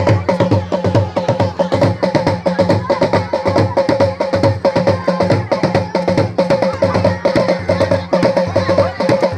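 Dance music driven by drums: a deep low drum and higher pitched drum strokes in a fast, steady repeating rhythm.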